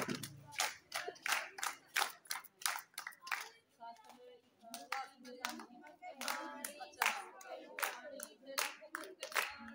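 A group of women clapping their hands in a steady rhythm, with women's singing voices rising over the claps now and then.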